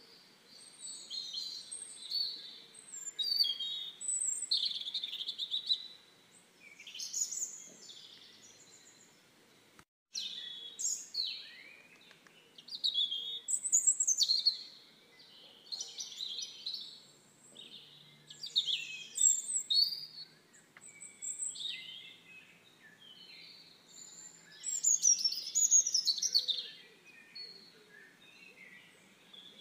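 Small songbirds singing: a run of varied chirps and quick warbled phrases coming in bursts every second or two. The sound cuts out completely for a moment about ten seconds in.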